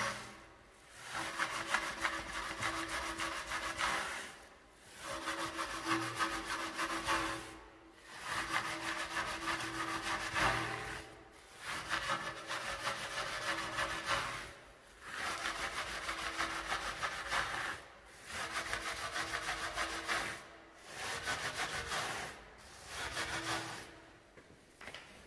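Stiff-bristled wheel brush scrubbing a foam-covered alloy wheel: a scratchy rub of rapid back-and-forth strokes, in bursts of two to three seconds with brief pauses between.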